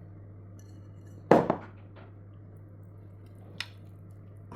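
Kitchenware clattering: one loud knock with a short rattle about a second in, then a small click near the end, over a steady low hum.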